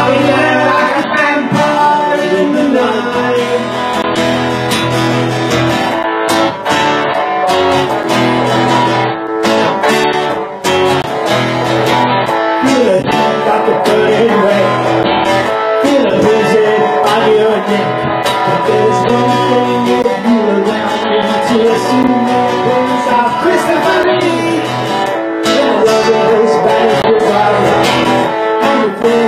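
Live acoustic-rock music: an electric guitar and an acoustic guitar strummed together, with a singing voice.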